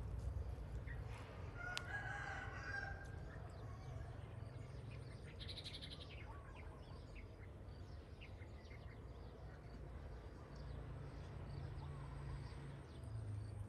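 A rooster crows once about a second in, and small birds chirp here and there over a low steady rumble.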